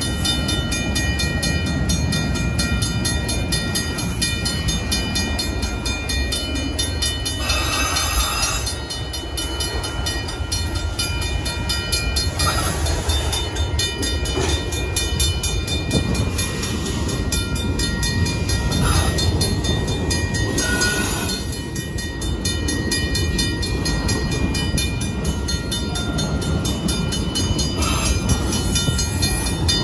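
Freight train of autorack cars passing a grade crossing: a steady rumble and rattle of wheels on rails, with short high metallic squeals every few seconds. Under it the crossing warning bell rings on in a fast, even rhythm.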